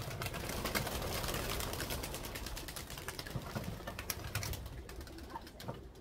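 Flock of racing pigeons taking off from a loft's landing board: a dense clatter of wingbeats that thins out over a few seconds as the birds get away.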